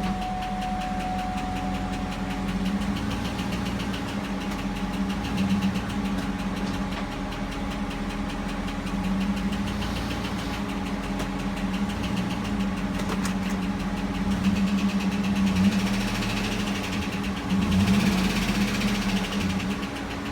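2009 GMC Yukon Denali's Vortec V8 running with a fast, even ticking over the engine hum, swelling a couple of times near the end. The owner blames the tick on a worn oil pickup tube seal in the oil pan, which starves the heads of oil pressure. He says it shows up when the engine is cold or after being held above 2,000 rpm.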